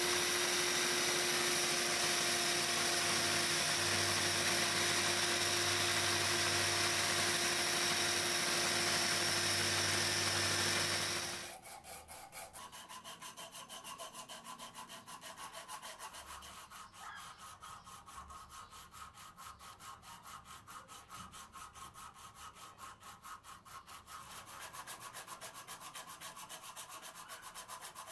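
Electric belt sander running steadily as a small steel piece of an anvil is ground on its belt; it cuts off suddenly about eleven seconds in. Then an abrasive strip is pulled quickly back and forth over the anvil's horn held in a vise, an even rhythm of scratchy rubbing strokes.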